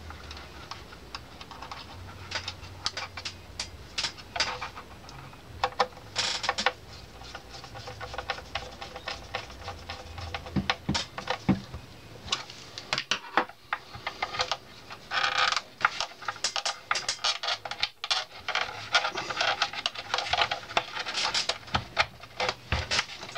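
Small metal and plastic parts on the underside of a Technics SL-1900 turntable being handled and fitted by hand, with irregular clicks and short rattles as the tonearm's ground wire and cable strain relief go back in. The clicks come thicker in the second half, and a faint low hum runs through the first half.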